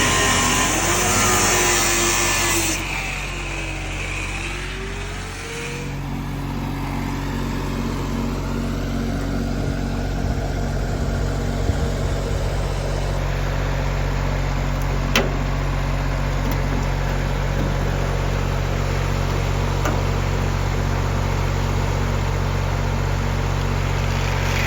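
An engine running steadily with a low, even drone. A wavering pitch rises and falls during the first few seconds before the sound settles to a constant note.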